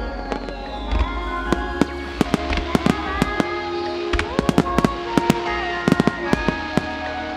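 Aerial firework shells exploding in a rapid, irregular string of sharp bangs, thickest from about a second and a half in until near the end, over background music.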